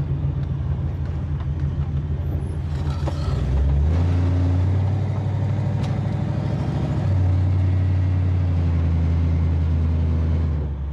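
1969 Chevrolet Impala's engine through its new 3-inch dual exhaust and Summit Racing mufflers, heard inside the cabin while driving: a steady low drone that grows louder about four seconds in, breaks briefly about seven seconds in, and drops back near the end. The owner hears a little header tick in it, which he puts down to header bolts needing tightening.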